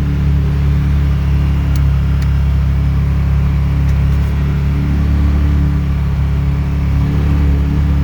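Can-Am Defender HD10 side-by-side's V-twin engine running steadily under way, a constant low drone.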